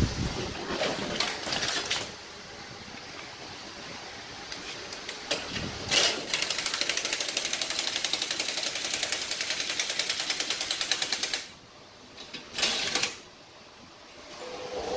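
Pneumatic air tool working in fast, even, rattling runs. There are short bursts in the first two seconds, a long run of about five seconds from six seconds in, and a brief burst near the end.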